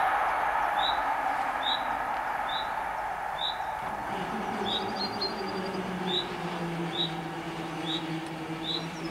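Level-crossing warning bells ringing a single repeated ding a little faster than once a second, over the fading rumble of a departing train. About four seconds in, a steady low electric hum starts as the barrier motors raise the booms. Brief bird chirps twice.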